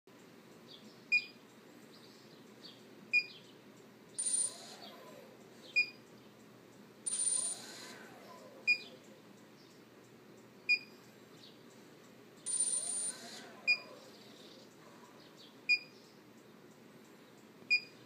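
Electric motor and its ESC (electronic speed controller): short high beeps every two to three seconds, and three times a brief whining burst that rises and falls in pitch as the motor tries to start and stops. This is a fault that could lie in either the motor or the ESC.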